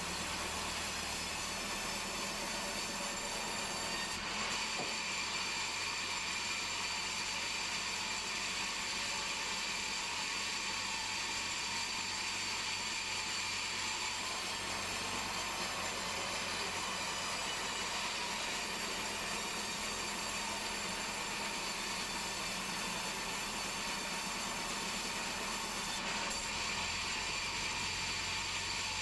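Band sawmill blade cutting through a large meranti log: a steady, even sawing sound with a high whine held throughout.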